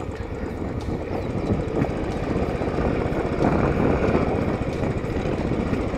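Royal Enfield Classic 500's single-cylinder engine running at low revs, engine braking on a steep dirt descent.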